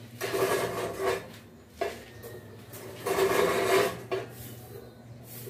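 Metal scraping against the rim of a sheet-metal charcoal-stove body, in two strokes about a second long each with a short knock between them; the metal rings as it is scraped.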